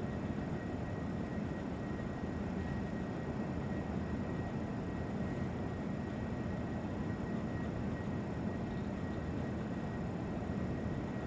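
Steady, even background noise, like a hum or rush, with a faint thin tone held throughout.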